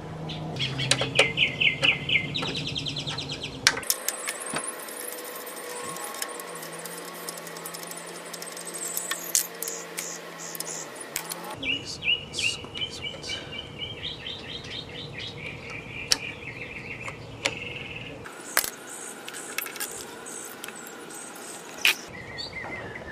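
Small birds chirping in several rapid trills, with scattered sharp clicks.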